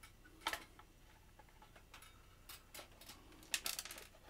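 Light clicks and knocks of a toaster's plastic housing being handled and turned over, with a sharper click about half a second in and a quick run of clicks near the end.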